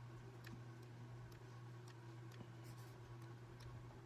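Near silence: room tone with a low steady hum and faint, irregular ticks.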